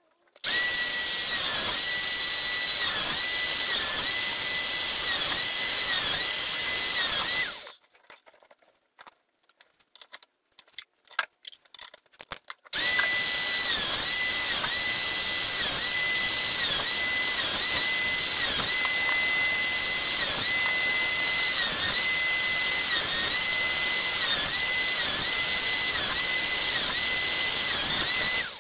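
Craftsman benchtop drill press running with a steady high whine as holes are bored into a wooden board. The whine dips briefly in pitch again and again. It runs for about seven seconds, stops for about five seconds of light clicks and handling, then runs again until just before the end.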